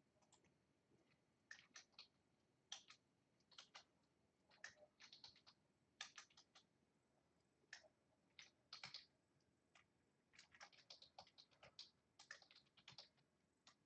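Faint typing on a computer keyboard: irregular runs of quick keystrokes with short pauses between them.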